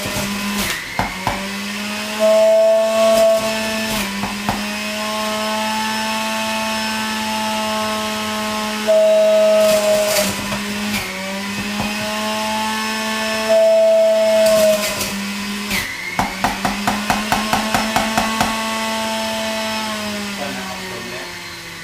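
Electric juicer motor running with a steady whine, louder and dipping slightly in pitch in three stretches as produce is pushed through it. A quick run of clicks or rattles comes about three-quarters of the way in, and the motor winds down near the end as it is switched off.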